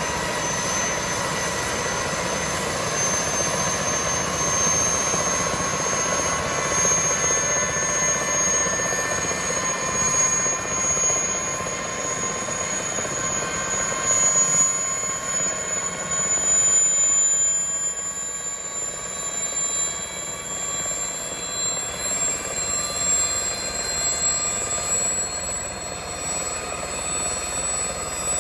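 Aérospatiale Gazelle helicopter's Turbomeca Astazou turbine whining on the ground during start-up, its high-pitched whine rising slowly and steadily in pitch as the engine spools up.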